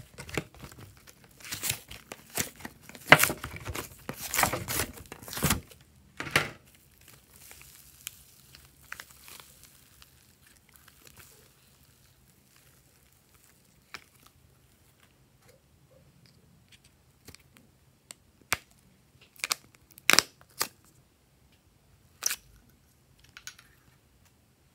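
Slime being pulled and stretched by hand, making dense sticky crackling and clicking for the first five or six seconds, then only a few scattered pops and clicks.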